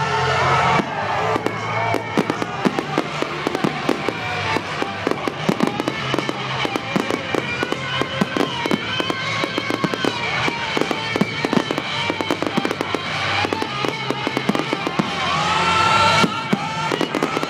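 Fireworks display: rapid bangs and crackles of bursting shells, dozens of them in quick succession, starting about a second in and thinning out near the end. Music plays alongside throughout.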